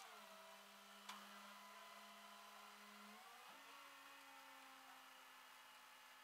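Faint, steady engine hum from the flatbed tow truck. About three and a half seconds in the pitch dips briefly, then steps up and holds higher as the engine speeds up. There is a single light click about a second in.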